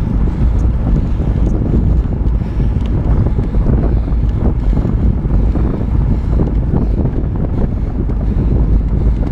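Wind buffeting the microphone of a fast-moving camera: a loud, steady low rumble with no breaks.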